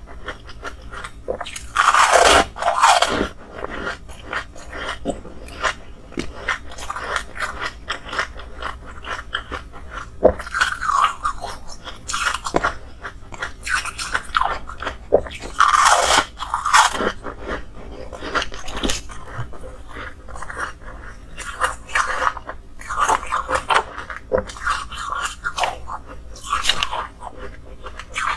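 Person biting and chewing hard, milky flower-shaped ice blocks: loud cracking bites about two seconds in, again near the middle and near the end, with irregular crunching chews between.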